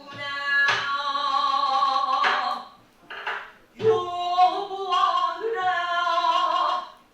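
Pansori singing: a solo voice holding long notes in two phrases, with a short break about three seconds in. A few low thumps from the buk drum accompaniment sound under the voice.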